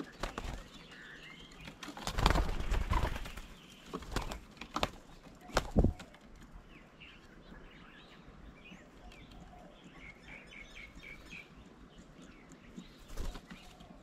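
Dove wings flapping as birds land and take off at a feeding table, with the loudest flurry about two seconds in and a few sharp knocks after it. A row of faint, high bird chirps comes later.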